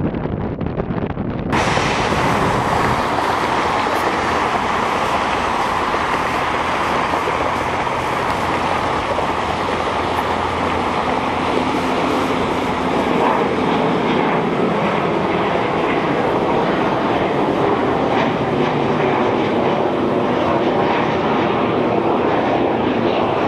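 McDonnell Douglas MD-80's rear-mounted Pratt & Whitney JT8D turbofans running at high thrust, a loud, steady jet noise typical of the takeoff roll and climb. It sets in suddenly about a second and a half in, after a quieter, duller stretch.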